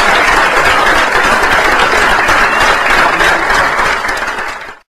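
An audience applauding steadily, then dying away quickly near the end.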